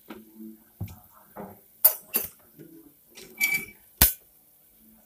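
Metal clinks, scrapes and knocks of an aluminium pressure cooker being handled on a gas stove. The sharpest knock comes about four seconds in.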